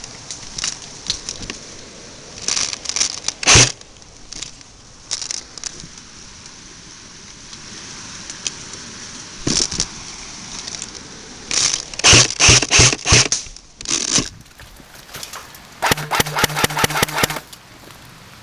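Crunching and crackling of dry leaves and brush under moving feet, with scattered sharp cracks. A little past two-thirds in comes a quick string of about five loud cracks. Near the end there is a rapid rattling burst over a low hum lasting about a second and a half.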